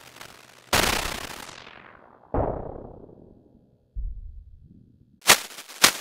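Erica Synths SYNTRX synthesizer's noise source struck through its envelope: three sudden bursts of hiss that die away over a second or so, each duller than the last, the third only a low thump. Two short sharp clicks follow near the end.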